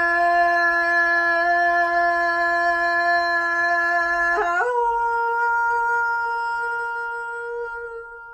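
A woman's voice holding one long sustained note of Hmong sung poetry (lug txaj), then stepping up to a higher held note about four and a half seconds in and fading a little near the end.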